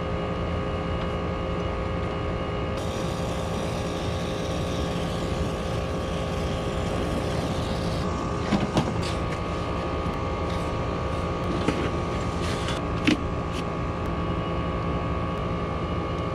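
Steady mechanical hum with a low rumble, with a few sharp metallic taps and clicks from hand tools about halfway through.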